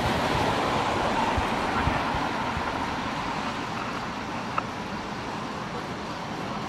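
Police SUV (Ford Explorer) driving past and away, its engine and tyre noise loudest at the start and fading steadily as it recedes. A single sharp click about four and a half seconds in.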